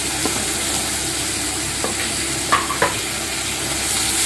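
Onion paste and ginger-garlic paste sizzling in hot oil in a wok while a spatula stirs them: frying the masala base. A few short clicks of the spatula against the pan, the loudest two coming close together past the middle.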